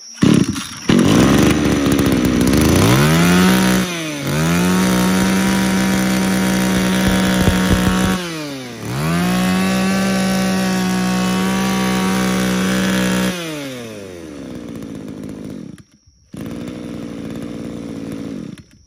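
Mitsubishi TB24 24cc two-stroke brush cutter engine revved to full throttle and held there. The throttle drops briefly about a third of the way in and falls to idle about halfway through, then it revs up again and winds down near the end.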